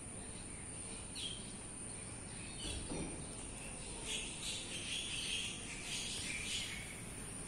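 Outdoor ambience: birds chirping, with the busiest stretch from about four to six and a half seconds in, over a steady high-pitched whine.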